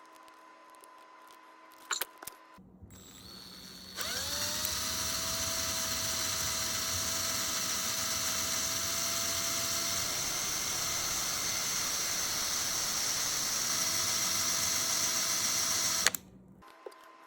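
Small power drill with a 5/64 inch bit drilling out a stripped screw in a plastic action figure: a couple of clicks, then the motor spins up quickly and runs steadily for about twelve seconds before stopping abruptly.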